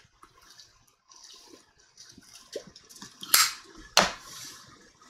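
A tobacco pipe being lit with a brass pipe lighter: soft puffing draws on the pipe, two sharp clicks about three and four seconds in, then a breathy exhale of smoke.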